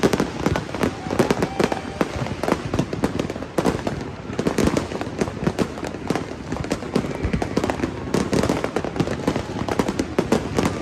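Many fireworks and firecrackers going off at once: a nonstop barrage of overlapping bangs and crackles with no pause.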